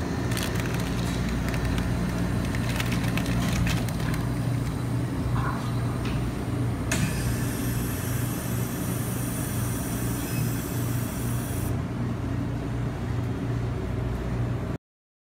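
Steady low machine hum with a few light clicks early on and a stretch of hiss in the middle; it cuts off abruptly near the end.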